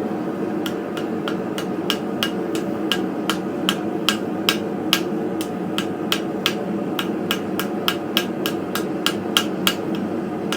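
A small detail hammer tapping rapidly on hot steel, about three light blows a second, knocking off slag before it cools and bakes on. A steady background noise runs underneath.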